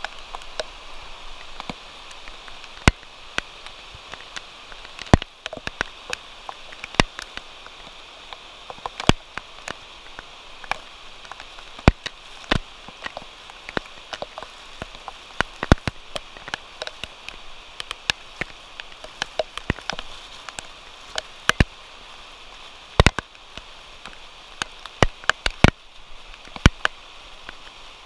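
Steady rain, a hiss broken by frequent sharp, irregular ticks of drops landing close by.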